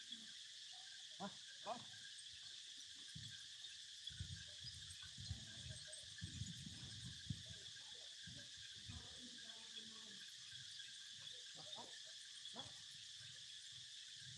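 Faint, steady high drone of insects, the outdoor background of a wooded site, with some faint low irregular rustling in the middle.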